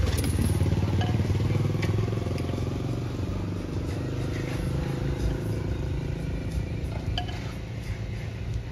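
A vehicle engine running with a steady low rumble that slowly grows quieter, with a few faint clicks over it.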